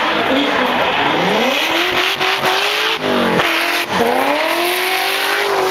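Drift car's engine revving hard, its pitch climbing and then dropping sharply about three times as the throttle is lifted and reapplied. The tyres squeal as they spin through the slide.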